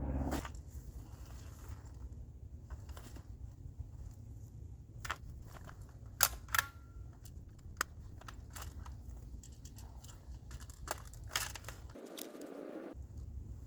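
Scattered light clicks and rustles over a steady low rumble, with a few sharper clicks about five to eight seconds in and again near eleven seconds.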